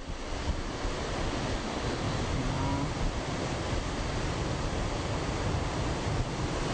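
Ocean surf breaking and washing, with wind rumbling on the microphone throughout.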